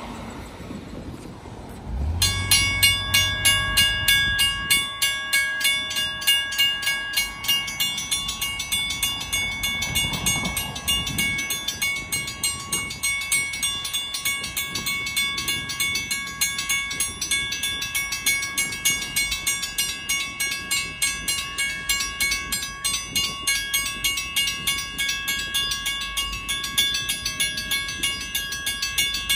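Railroad grade-crossing warning bell starting up about two seconds in and ringing on in a fast, even, unbroken rhythm: the crossing signals have activated for an approaching train.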